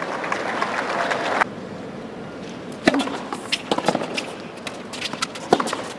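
Tennis ball struck by rackets and bouncing on a hard court: a sharp serve strike about three seconds in, then a few more hits and bounces of the rally. Before that, crowd noise stops abruptly at a cut.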